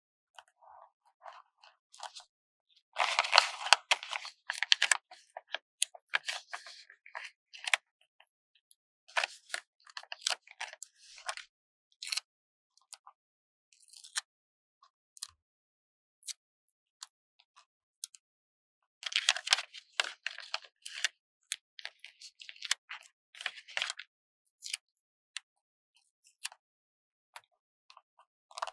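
Paper stickers being slowly peeled off their backing sheet: crackly, papery peeling in several bursts, the loudest about three seconds in, with small ticks and rustles of paper between.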